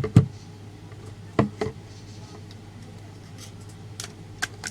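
A few scattered sharp clicks and knocks of hand tools and small parts being handled while a computer speaker unit is taken apart, over a faint steady low hum.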